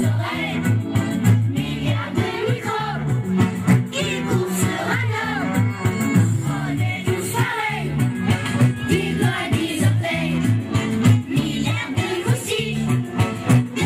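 A group of girls singing together into a microphone over music with a steady bass line.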